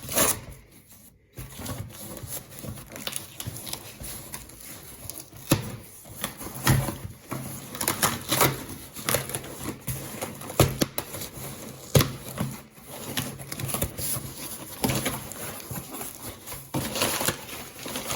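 A parcel being opened and unpacked by hand: irregular rustling, crackling and tapping of packaging, with a brief lull about a second in.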